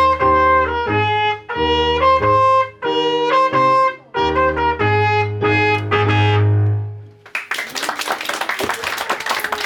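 An instrumental band plays a string of held, rhythmically repeated chords with a strong bass line. The piece ends about seven seconds in, and the audience applauds.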